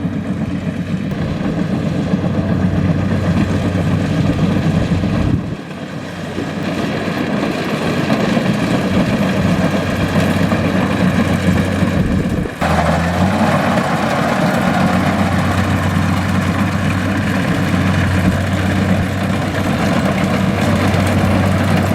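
Kubota DC-70 combine harvester's diesel engine running steadily while the machine works in a rice field. There is a brief drop about five seconds in. About twelve seconds in, the sound changes suddenly and a louder rushing noise joins the engine hum.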